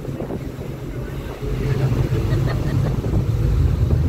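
Low, steady rumble of a passenger ferry's engines, stepping up in loudness about one and a half seconds in.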